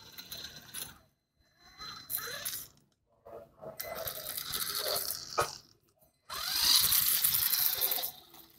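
WLtoys 12428 RC buggy's electric motor and gear drivetrain whirring in three throttle bursts, with tyre noise over stone paving. The last burst, starting suddenly about six seconds in, is the loudest.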